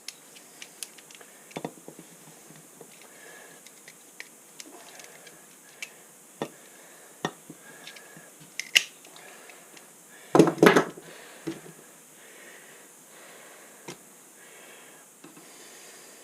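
Scattered light clicks and taps from hands and tools working on a wood stove door while a new rope gasket is cut and fitted. A louder short clatter comes about ten seconds in.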